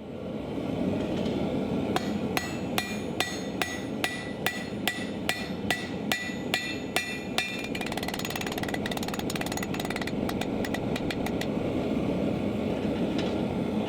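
A hammer strikes hot square bar on an anvil about two and a half times a second, each blow ringing, then finishes with a quicker run of lighter taps. The forge gives a steady rushing noise underneath.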